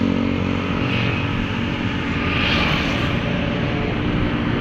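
Road traffic passing close by: a coach bus and motorcycles driving past with a steady engine drone and tyre noise, swelling as vehicles go by.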